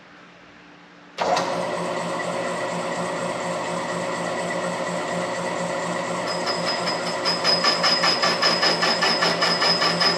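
Belt-driven lathe cutting in suddenly about a second in and running steadily while a carbide tool takes a light facing cut on a steel sawmill blade collar. From about six seconds a high, pulsing squeal of the tool on the work joins the machine's hum.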